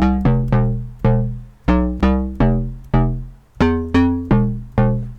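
UK bass / bass house pluck patch from the Xfer Serum synthesizer playing a quick riff of short notes. Each note is bright at the attack and dies away fast, over a deep sub-bass. The riff stops just before the end.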